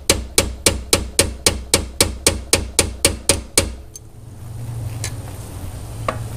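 Hammer repeatedly striking a steel straight punch, driving at the shifter linkage's 7 mm dowel pin on a C4 Corvette: a steady run of sharp metallic blows, about four a second, that stops a little after three and a half seconds. The pin is stuck and is not being knocked out.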